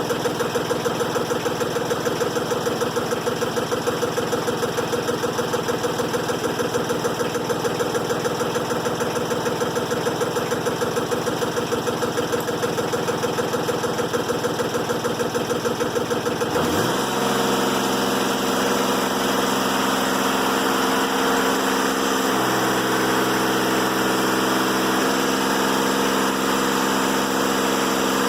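Diesel engine of a Timberking 1400 sawmill running with a fast, even pulse. About two-thirds of the way through the sound changes abruptly, with a brief rise in pitch, to a smoother, steadier hum.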